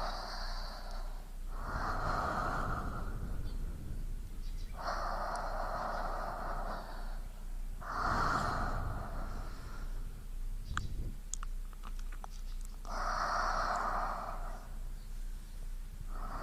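A person breathing slowly and evenly in and out, about five breaths. A few faint clicks fall in a longer pause about two-thirds of the way through.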